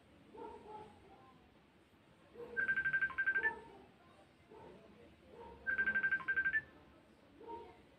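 A phone ringing with a trilling electronic ringtone: two rings, each a quick run of about ten beeps in a second on one high tone, about three seconds apart.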